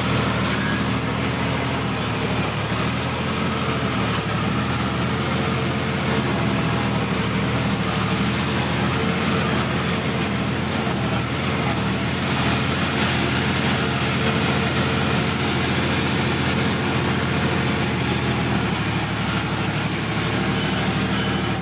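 Sonalika DI-50 RX tractor's diesel engine running steadily as the tractor drives, heard from the driver's seat.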